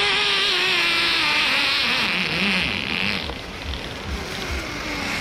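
Zipline trolley pulleys whirring along the cable, a whine that falls steadily in pitch as the ride slows, over a rushing hiss that fades about three seconds in.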